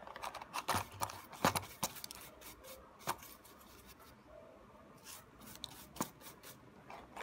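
Drilled acrylic sheet having its plastic shavings brushed and wiped off by hand: irregular rubbing and rustling, with a few sharp clicks.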